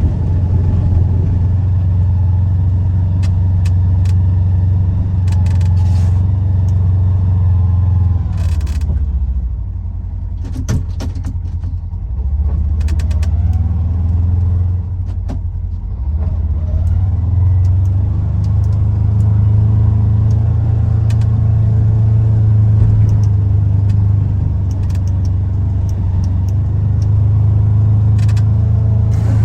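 Polaris Ranger XP 1000 side-by-side's engine running steadily as the machine drives and plows. The engine eases off about a third of the way in and picks back up, with a few sharp clicks and knocks scattered throughout.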